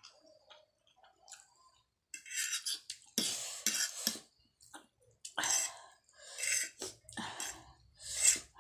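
Close-up eating noises: a string of short, noisy mouth and breath sounds about a second apart while chewing noodles. A metal fork scrapes and twirls noodles on a ceramic plate near the end.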